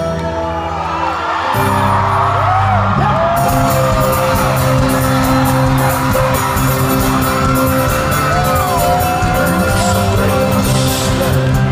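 Folk-rock band playing live in an arena, with banjo, keyboard, guitar and double bass, heard from within the crowd. The bass and full band come in about a second and a half in, with a fast strummed rhythm from about three seconds, while the crowd whoops and sings along.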